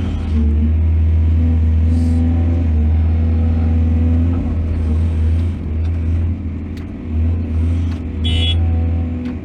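Heavy diesel engine of an excavator at work, a steady low drone whose loudness dips and swells in the second half. A short high-pitched tone sounds near the end.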